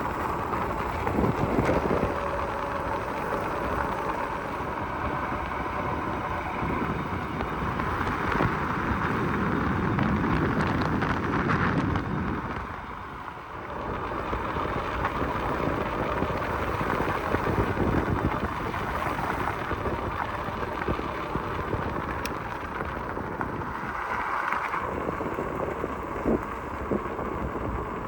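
Ariel Rider Grizzly electric fat-tire bike being ridden, with wind rushing over the microphone and steady riding noise. The noise eases briefly about halfway through.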